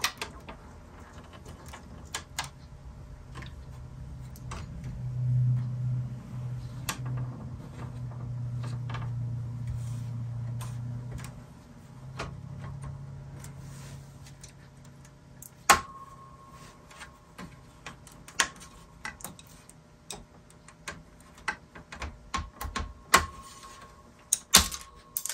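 Irregular clicks, taps and light knocks of a hard plastic iMac G3 inner bezel being pressed and shifted by hand onto the CRT and subframe while it is lined up. A low steady hum lasts several seconds in the middle, and a few sharper clicks stand out near the end.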